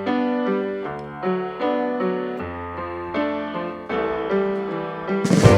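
Background music: electric piano playing a series of chords, with a drum fill coming in near the end.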